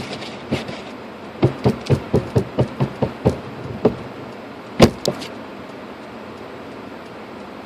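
A quick run of about nine sharp knocks, roughly four a second, then a single louder knock about five seconds in: a windshield wiper blade being knocked against the glass to shake off packed snow and ice.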